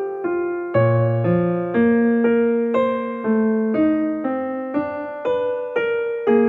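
Background music: a piano-style keyboard tune in chords, with notes struck evenly about twice a second.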